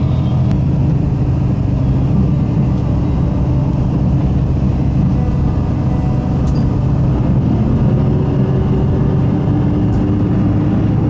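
Steady running noise inside a moving train carriage: an even low rumble of the train travelling along the line, with a couple of faint high ticks.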